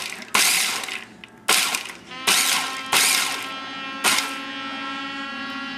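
Small electric food chopper pulsed about five times in quick bursts, its blade whirring with the crumbs rattling against the plastic bowl, then held on for the last couple of seconds as a steady motor whine.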